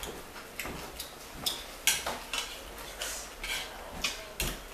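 Utensils clicking and clinking against a bowl while noodles are eaten: a string of short, sharp clicks.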